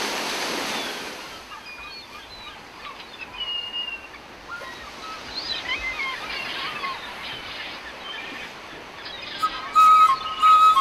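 Birds chirping and calling in short sweeping notes over a steady background hiss, after a rush of noise that fades in the first second. About a second before the end, louder music starts with a steady whistle-like flute tone and rhythmic bursts.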